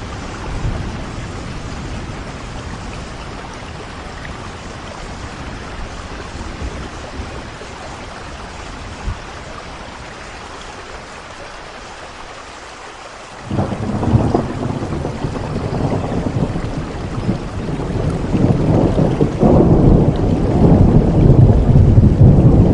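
Heavy rain falling steadily, then about halfway through a sudden peal of thunder that rolls on as a low rumble, growing louder near the end.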